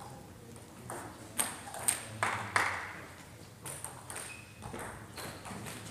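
Table tennis ball being hit back and forth in a rally, sharp clicks of ball on bat and table roughly every half second, starting about a second in.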